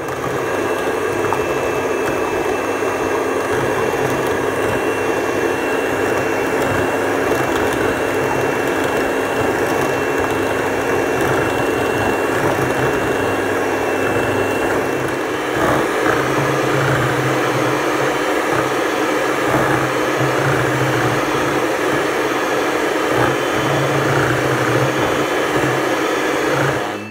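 Handheld electric mixer running steadily, its twin beaters whipping instant coffee and hot water into a thick dalgona foam in a ceramic bowl. A thin high whine in the motor fades out about halfway through and the sound grows slightly rougher.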